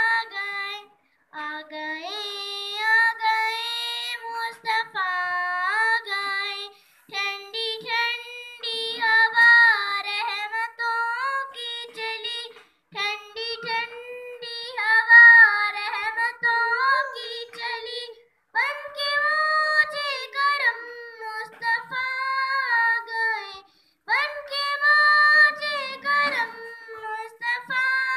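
A young girl singing an Urdu naat solo into a microphone, with no instruments, in long phrases broken by short pauses for breath.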